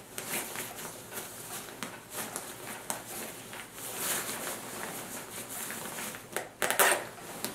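Zipper on a camouflage Gore-Tex bivy cover being pulled closed in short, scratchy runs, with the nylon shell rustling under the hands; a louder zip stroke near the end.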